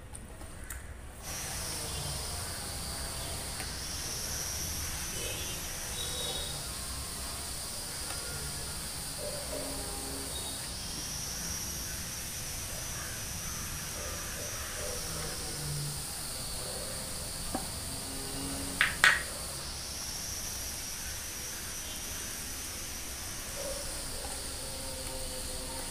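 A steady high-pitched insect chorus buzzes in from about a second in, swelling and easing slowly. Under it come faint soft squelches of rice and curry being mixed by hand on a steel plate, and two sharp clicks about nineteen seconds in.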